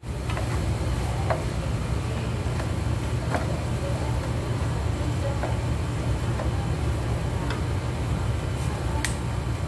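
Wooden spatula stirring and scraping chicken in a nonstick frying pan, with scattered light knocks against the pan, over a steady low hum.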